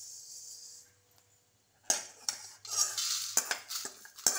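Clinks of metal pan-gripper tongs on an aluminium kadai, and a rattle of dry-roasted whole spices (coriander seeds, chana dal, cumin, pepper) as they are tipped and scraped out onto a steel plate. It opens with a short high hiss and a second of quiet before the clinking starts about two seconds in.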